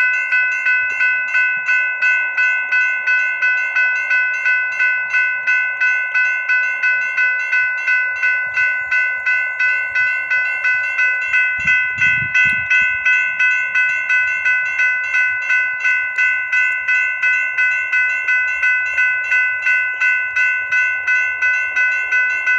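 Railroad grade crossing warning bell ringing steadily, about two even strikes a second, signalling an approaching train.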